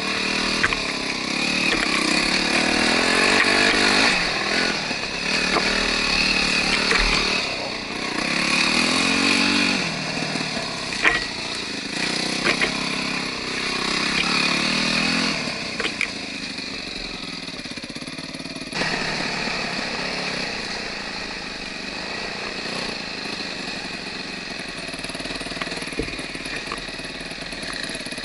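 Enduro dirt bike engine being ridden off-road, revs rising and falling again and again, with a few sharp knocks. After about 19 s it settles to a steadier, quieter run.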